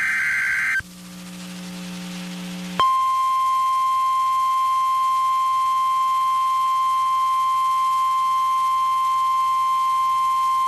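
NOAA Weather Radio alert signals: the last burst of the SAME digital data header ends within the first second. After about two seconds of faint low hum, the steady 1050 Hz warning alarm tone comes in about three seconds in and holds unchanged, the signal that a new severe weather warning is about to be read.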